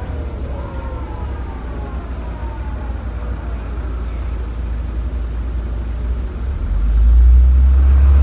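MAN NL202 bus's diesel engine and ZF gearbox heard from inside the cabin: a steady low rumble with a whine that falls in pitch over the first few seconds, then about seven seconds in the engine's rumble grows louder as it pulls harder.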